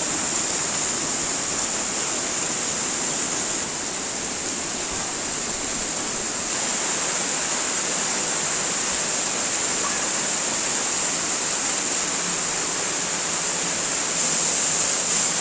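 Waterfall with water rushing steadily.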